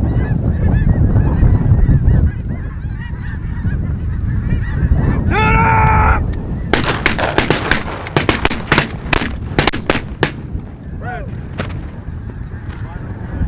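A large flock of snow geese calling overhead, a dense chatter of high honks, with one louder, close call about five seconds in. Just after it comes a quick run of a dozen or so sharp cracks, and wind rumbles on the microphone throughout.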